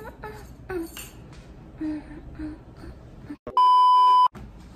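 An edited-in censor bleep: one loud, steady high-pitched beep of about three-quarters of a second, about three and a half seconds in, over faint low sounds.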